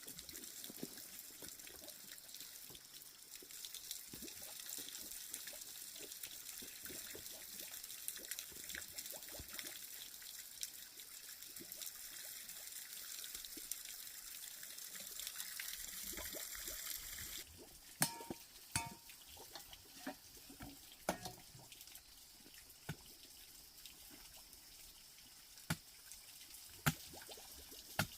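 Water trickling and pouring steadily, then cutting off abruptly about two-thirds of the way through. Scattered sharp knocks and taps follow, a few of them with a brief ringing tone.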